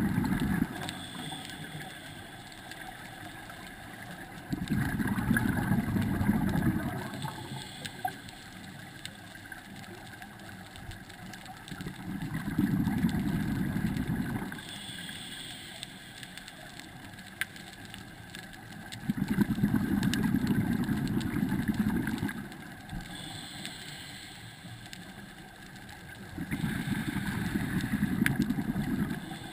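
Scuba regulator breathing heard underwater: a bubbling exhalation of about two seconds, repeated roughly every seven seconds, four times, with a fainter hiss of the inhale in between.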